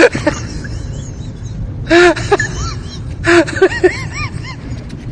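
A person's voice making short wordless calls that rise and fall in pitch, one about two seconds in and a quick run of several about a second later, over a steady noisy background.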